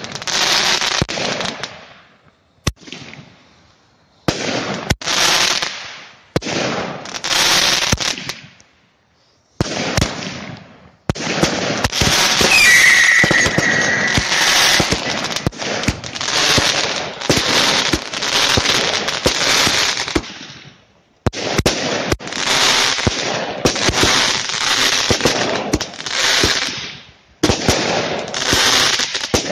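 Category F2 consumer fireworks batteries firing: rapid sharp bangs over a continuous hiss, in rounds of a few seconds each with short quiet gaps between them. A short whistle comes about thirteen seconds in.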